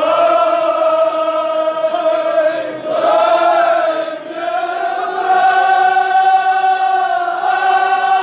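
Men's voices chanting a Kashmiri marsiya, a mourning elegy, in long drawn-out held notes, with brief breaths about three and four seconds in.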